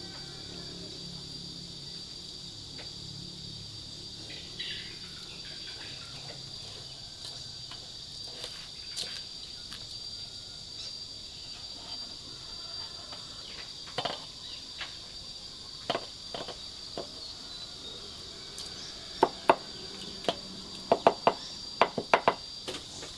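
Insects, likely crickets, keep up a steady high-pitched chorus, with scattered sharp knocks. Near the end comes a quick cluster of louder knocks.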